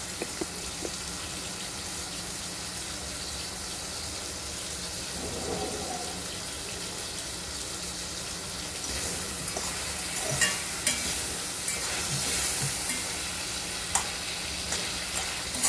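Onions, tomatoes and sweet peppers sizzling steadily as they sauté in oil in a metal pot on a gas stove. From about nine seconds in, a utensil stirring them, with short clinks and knocks against the pot.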